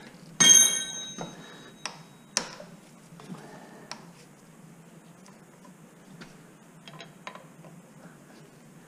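Metal hand tools clinking: a wrench or socket strikes hard with a bright ringing clang about half a second in that fades over a second or so. Then come a few sharp clicks and scattered lighter ticks as tools are handled.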